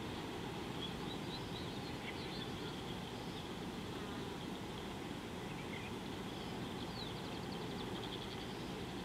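Steady high insect hum over a low rumbling noise bed, with a few faint bird chirps and a short rapid trill about seven seconds in.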